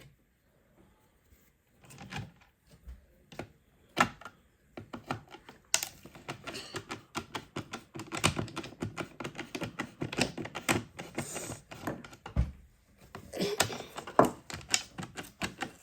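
Small clicks and taps of a Torx screwdriver working screws out of a car door speaker's frame: a few separate clicks at first, then a quick, dense run of clicking from about a third of the way in to near the end.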